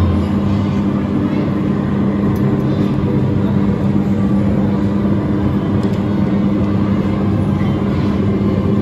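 Ride car of an elevated track ride running steadily along its rail, a constant motor hum under the rumble of the running gear and the hall's background noise.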